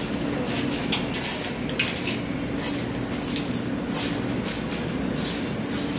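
Subway train standing at the platform with its doors open, its equipment giving a steady low hum, with irregular sharp metallic clicks and clinks over it.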